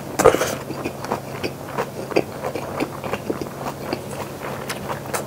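Close-miked chewing of a mouthful of jokbal, braised pig's trotters: many small wet clicks and smacks at an irregular pace, with the lips closed.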